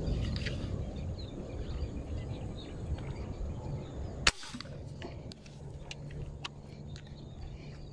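Rustling handling noise, then a single sharp crack about four seconds in, followed by quieter outdoor ambience with faint bird chirps.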